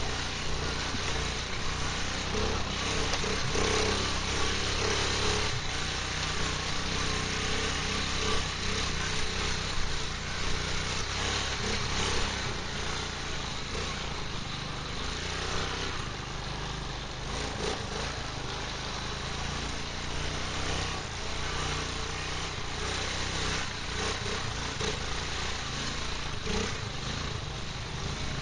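Quad bike (ATV) engine running steadily under way, heard from the machine itself, with a constant rush of wind and ride noise over it.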